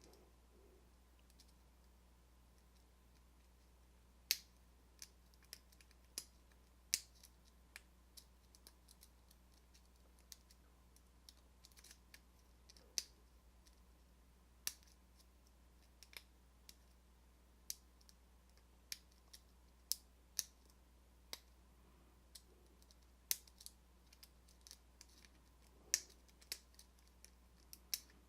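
Lock picking in a four-pin Alpha padlock: scattered sharp clicks from the pick and tension wrench working the pins, at irregular intervals, starting about four seconds in.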